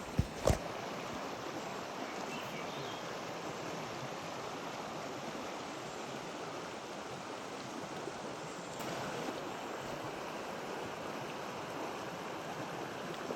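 Small creek running steadily, an even rush of flowing water. Two or three sharp clicks about half a second in.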